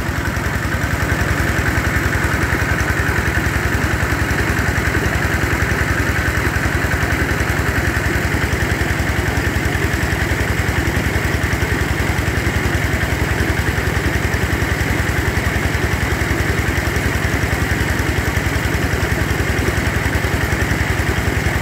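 Engine-driven water pump running steadily and loud, pumping out a nearly drained pond, with an even fast pulse from the engine.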